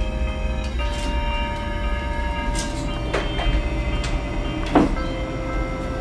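Background music of held, droning chords that change about a second in and again near five seconds, over a low rumble. Several sharp knocks break in as a cat clambers on a fridge-freezer's door handle, the loudest near five seconds.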